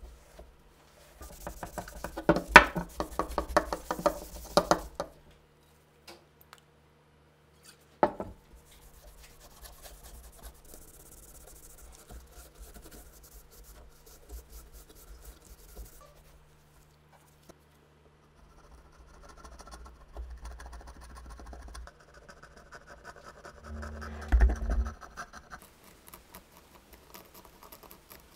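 Hand work on parts at a workbench: a burst of scratching and clicking, a sharp knock, then stretches of quieter rubbing and a heavier thump near the end.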